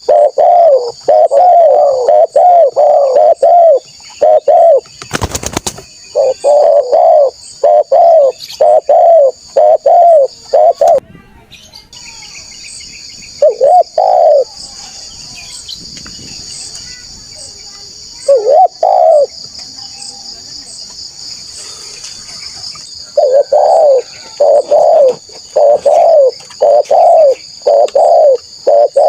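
Spotted dove cooing in runs of repeated low coos, with pauses of several seconds between phrases. A steady high buzz runs behind it, and a single loud thump comes about five seconds in.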